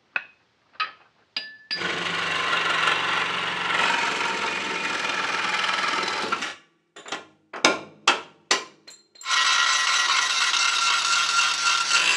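Angle grinder with a thin cut-off disc cutting through steel brackets inside a Land Rover chassis rail. It runs steadily for about four seconds, gives a few short bursts, then cuts steadily again for the last few seconds.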